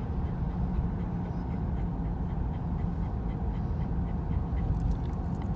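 Steady low rumble of a Mercury car's engine and tyres heard from inside the cabin while driving, with a dog panting softly close by at about three breaths a second.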